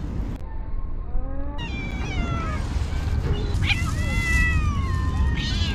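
Cats meowing, a string of high drawn-out calls that overlap one another, starting about a second and a half in, over a steady low rumble.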